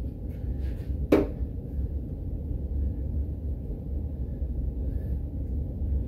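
Steady low background hum, with a single sharp knock about a second in.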